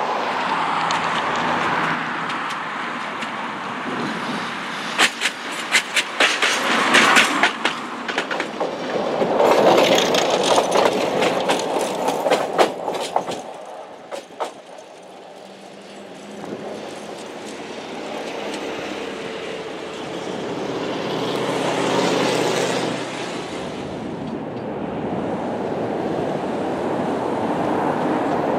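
Tatra T3 tram running along worn, poorly kept track, its wheels clattering in quick irregular clicks over rail joints as it comes past. The clatter stops about halfway through and a steadier running sound builds again in the second half.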